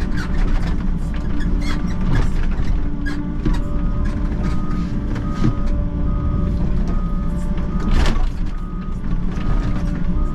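Volvo compact excavator's diesel engine and hydraulics running as the boom and bucket work, heard from the cab, with frequent metallic clicks and knocks. A steady, repeating beep sets in a few seconds in, and a single loud clank comes about eight seconds in.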